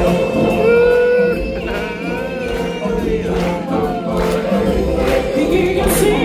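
Live stage-show music with a choir singing, the voices holding and bending long notes over the band.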